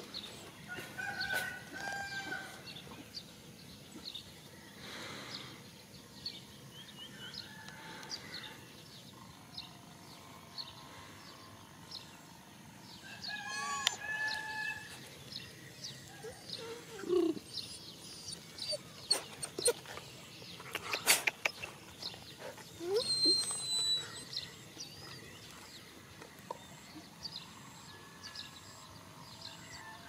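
A rooster crowing a few times, one call about a second in and another around the middle, with small birds chirping in the background. A run of sharp clicks comes a little after the middle.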